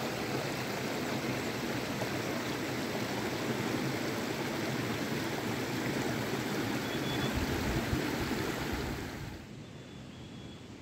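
A shallow mountain stream running over rocks, a steady rush of water. It falls away sharply about nine seconds in, leaving a fainter outdoor ambience.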